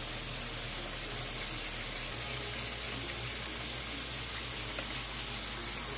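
Raw chicken pieces sizzling steadily in hot oil in a wok.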